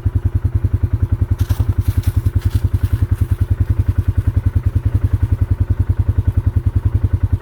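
Bike engine idling with an even, fast pulse of about ten beats a second. A few brief clattering rustles come in about one and a half to three seconds in.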